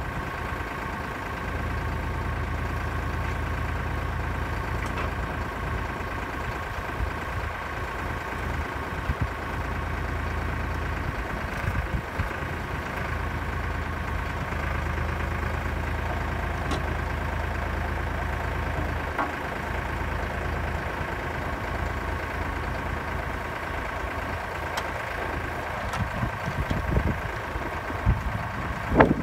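Kioti tractor's diesel engine running steadily while it drives the hydraulics of a trailer-mounted log loader as the crane boom is worked, with a few light knocks. The low engine note drops a little about two-thirds of the way through.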